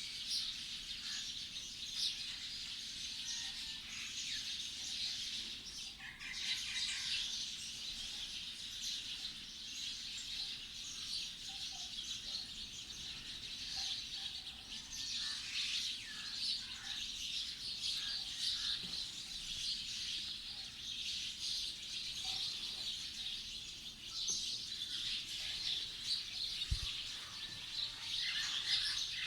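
Many small birds chirping at once, a dense, continuous chorus of short overlapping chirps from a flock at feeding time. A single brief low thump sounds near the end.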